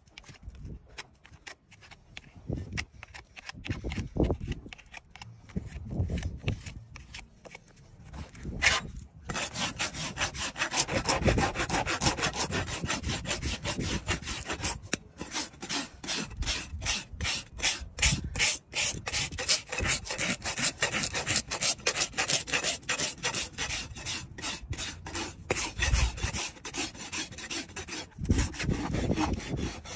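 Farrier's flat hoof rasp filing the bottom of an overgrown horse hoof, in a steady rhythm of back-and-forth scraping strokes. The first several seconds hold only quieter, scattered clicks and scrapes before the rasping takes over about nine seconds in.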